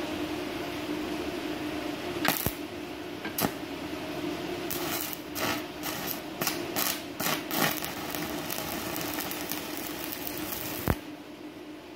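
Stick (MMA) welding arc from a 4 mm electrode with the inverter welder set to 100 amps. A few sharp pops come as the electrode is struck. Then comes a run of crackling spurts, and a steady crackle as the arc burns. It cuts off suddenly with a snap near the end.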